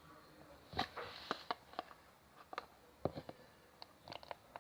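Scattered light clicks and taps from plastic bottles and caps being handled while liquid ingredients are added to a slime mixture, with a faint brief hiss about a second in.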